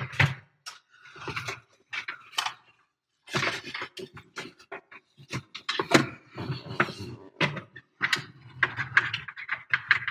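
Hands unplugging and routing a USB cable and wiring harness behind a vehicle dashboard: an irregular run of plastic clicks, rattles and wire rustling.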